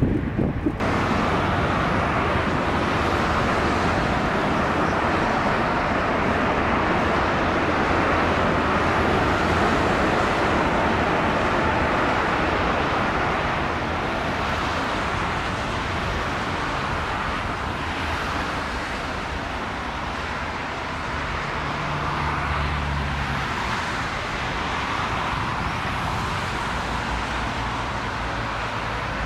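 Jet airliner engines running, a steady roar that eases a little about halfway through.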